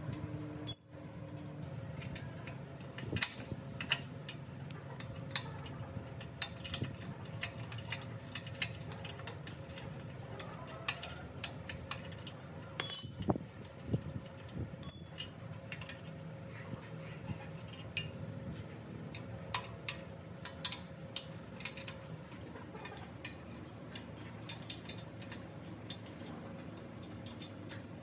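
Irregular light clicks and taps of metal parts and hand tools being handled, with a few brighter ringing metallic clinks, over a low steady hum.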